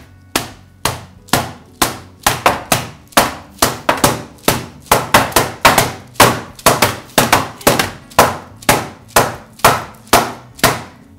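Two metal baking trays of piped macaron shells rapped repeatedly and quickly onto a wooden board, about three knocks a second in an uneven rhythm. The rapping knocks the air bubbles out of the macaron batter and flattens the tops before baking.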